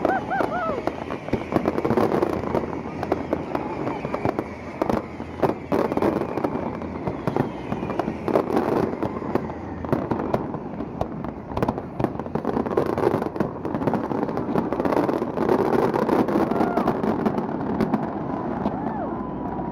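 Fireworks display going off: many sharp bangs and crackles at an uneven pace throughout, over a steady wash of noise.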